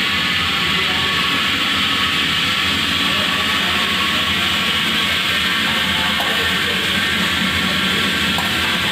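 Steam-boiler-driven food-processing plant running: a loud, steady hissing roar with a low rumble underneath, holding constant throughout.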